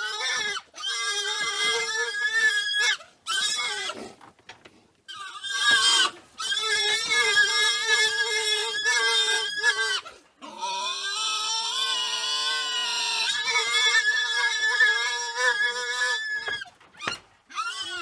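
Wild boars squealing: a run of long, high-pitched squeals, some held for four or five seconds, broken by short pauses.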